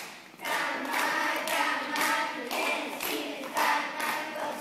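A class of children chanting a cheer in unison, with hand claps keeping time about twice a second.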